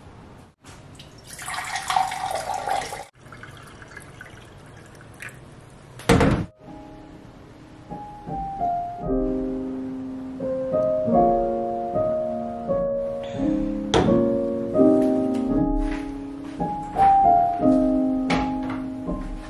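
Water rushing briefly into a glass at a kitchen tap, then a single sharp thunk about six seconds in. Piano music starts about eight seconds in and plays on, note by note.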